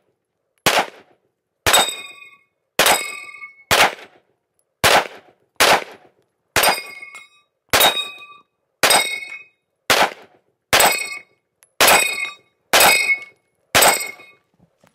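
FK BRNO PSD pistol firing 7.5 FK rounds at a steel double-star spinner target, about one shot a second, fourteen shots in all. Most shots are followed by the ringing clang of the struck steel plates.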